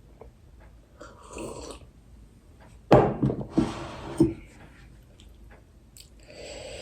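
A person eating spicy instant noodles and kimchi close to the microphone: chewing and slurping in short runs, with a louder sudden burst about three seconds in lasting over a second.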